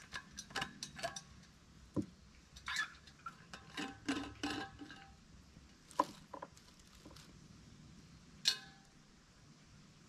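Light clinks and taps of a metal thermos and its cup being handled, a quick run of them over the first few seconds, then two single sharper clinks about six and eight and a half seconds in.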